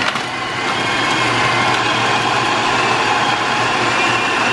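Electric food processor running at a steady pitch, its blade chopping raw beef with ice cubes and starch into meatball paste.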